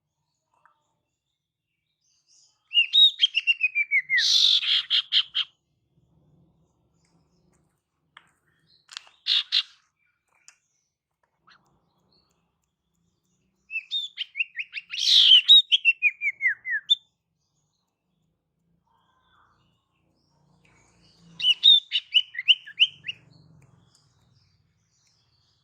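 Female sirtu (cipoh, an iora) song played as a lure call: three rapid phrases of chirping notes that slide downward in pitch, each two to three seconds long and spaced several seconds apart, with a short burst of notes in between.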